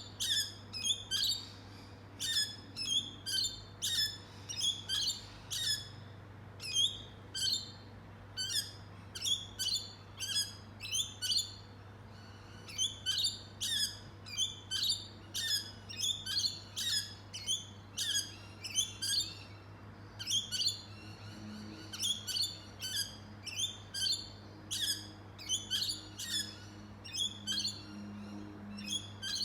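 Birds chirping continuously: short, high chirps repeated about twice a second throughout, over a faint steady low hum.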